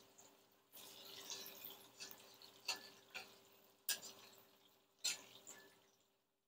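Hot oil sizzling and crackling around popcorn kernels frying in a pot, with three sharp clicks standing out. The sizzle fades away near the end.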